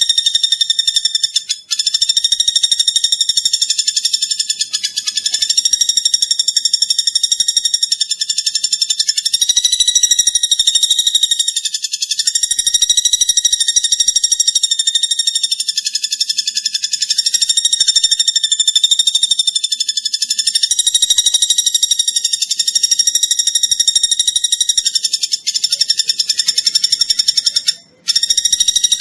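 Platuk bawang bird calling in a continuous high, buzzy, very fast trill that wavers slightly in pitch, breaking off briefly about two seconds in and again near the end.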